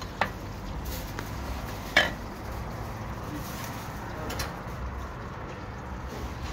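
Metal ladle and skimmer clinking against large metal cooking pots while food is dished out: a few sharp clinks, the loudest about two seconds in, over a low steady hum.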